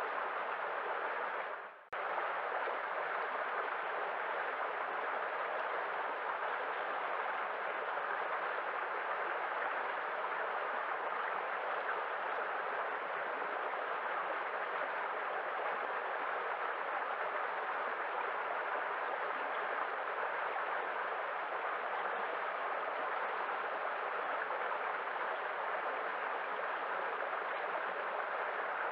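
Waterfall: steady rushing water. The sound dips away briefly and cuts back in abruptly about two seconds in.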